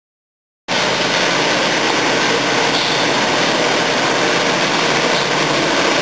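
About half a second of dead silence, then a rail track maintenance machine's engine running steadily and loudly, with a strong hiss over it.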